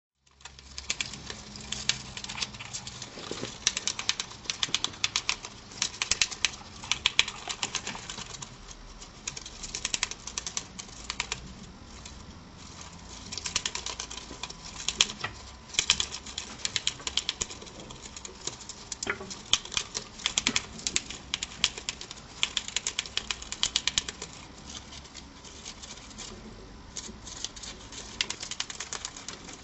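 Mongolian gerbil gnawing and shredding a strip of paper: rapid crisp clicks of its teeth in runs, with brief pauses.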